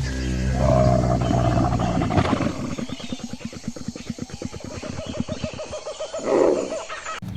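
An animal's deep, pitched call, followed by a low, rapidly pulsing rattle for several seconds, and another call near the end.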